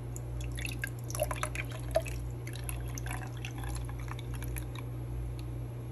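Cold brew coffee concentrate poured from a glass swing-top bottle onto coffee ice cubes in a tall glass: a thin trickling splash with many small clicks and crackles over the first three seconds or so.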